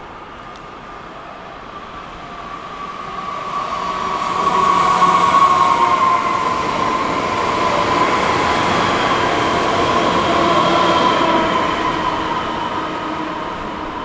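Bombardier Talent 2 electric multiple unit approaching and passing close by, wheels running on the rails under a steady electric whine from its drive that dips slightly in pitch as it goes by. The sound builds over the first few seconds, is loudest from about a third of the way in, and eases off near the end.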